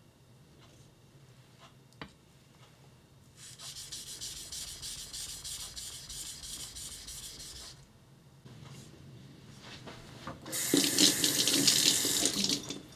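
Yanagiba blade stroked back and forth on a small natural whetstone for about four seconds, a steady scraping hiss. Near the end a kitchen tap runs into a stainless sink for about two seconds as the blade is rinsed under it; this is the loudest sound.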